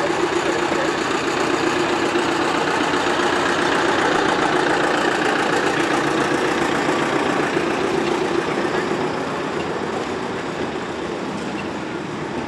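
Small 600 mm gauge diesel locomotive running close by with its carriages, a steady engine sound with a low hum that slowly fades over the last few seconds as it moves away.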